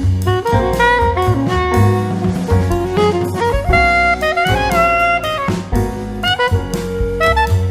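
Instrumental background music with a melody over bass and drums, at a steady beat.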